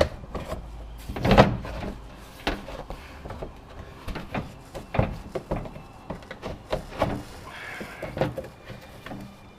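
Irregular knocks, clunks and rattles of a car's underbody tray being handled and pushed into place, with the loudest knock about a second and a half in and others around five and seven seconds.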